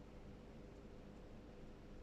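Near silence: faint steady room hiss with a low hum, no breathing or snoring sound standing out.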